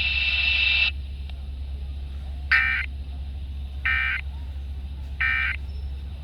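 Emergency Alert System end-of-message signal over the radio: three short digital data bursts about a second and a half apart, closing the required monthly test. A hiss cuts off about a second in, and a low hum runs underneath.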